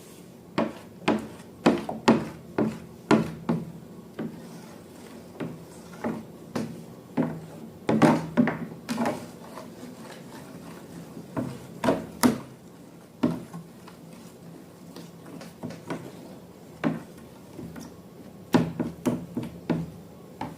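Slime being handled and worked in a container: irregular sharp clicks, taps and squelchy snaps, some in quick clusters.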